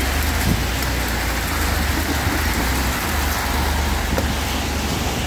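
Heavy rain pouring in a windstorm: a dense, steady hiss of rain with a constant low rumble underneath.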